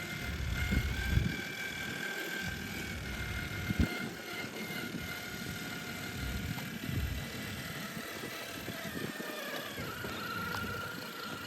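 Axial SCX6 RC crawler's electric motor and gear drivetrain whining steadily as it crawls over dirt, the whine drifting slightly in pitch and shifting about ten seconds in. A single sharp knock about four seconds in.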